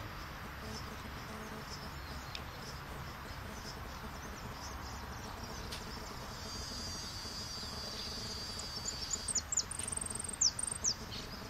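Caged jilguero finch singing: a high, quick warbling song from about six seconds in, turning near the end into louder sharp chirps, a short high held note and a few fast falling notes, over steady outdoor background noise.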